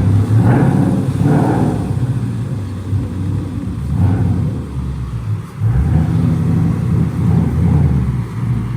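Ford Mustang GT's V8 engine running loud, its note rising and falling a few times with the throttle.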